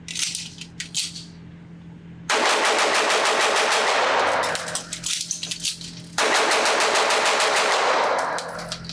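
Fowler Vanta 9 Ported 2011-style 9mm pistol firing a rapid string of shots. It pauses for about two seconds for a magazine change, with a few clicks and clatters, then fires a second rapid string.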